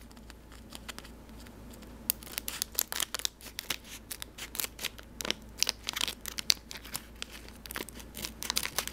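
Plastic blind bag of a LEGO Super Mario character pack crinkling and crackling as it is handled and snipped with scissors to open it. A quiet start, then a rapid, irregular run of sharp crackles from about two seconds in.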